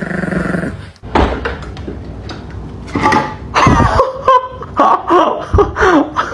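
An electric foil shaver buzzing steadily, cut off sharply about a second in. It is followed by scattered knocks and pitched sounds that rise and fall.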